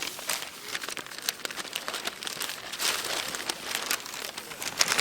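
Crinkling and rustling of a thin, crackly material being handled: a dense, irregular run of sharp crackles.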